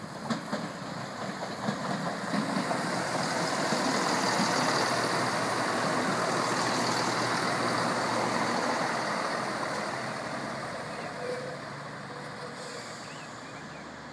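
CrossCountry Class 170 Turbostar diesel multiple unit passing close by: its underfloor diesel engines and wheels on the rails build to a peak about halfway through, then fade as it runs on into the station.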